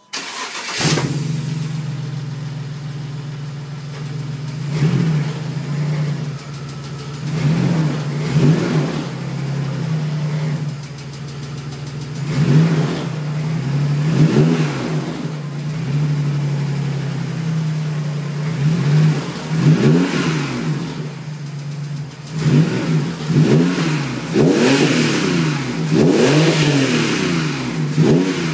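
BMW E39's M54B30 3.0-litre inline-six, heard at the tailpipe of a muffler-deleted exhaust, starts up at the very beginning and settles into an idle. It is then revved repeatedly, each blip rising and falling, with several blips in quick succession near the end.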